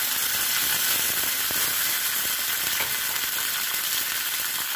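Water poured into a hot frying pan of oil, sizzling and crackling steadily as it hits the oil.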